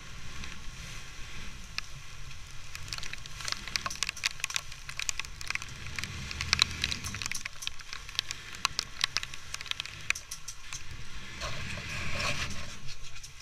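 Rain and spray pattering on the camera as irregular crackling taps, over a steady low rumble of wind and the boat running through rough water.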